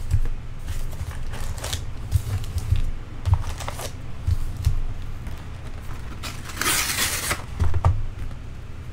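Cardboard trading-card hobby boxes being handled and shifted on a tabletop: scattered light knocks and thumps, with a longer scraping rustle of cardboard about seven seconds in.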